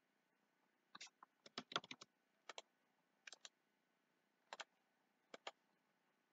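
Faint, sharp clicks of a computer mouse, scattered and some in quick pairs, against near silence.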